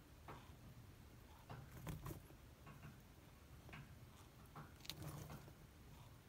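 Faint, scattered clicks and scratches on bark-chip substrate as a rough-scaled plated lizard grips a Djungarian hamster in its jaws, with the sharpest ticks about two seconds and five seconds in.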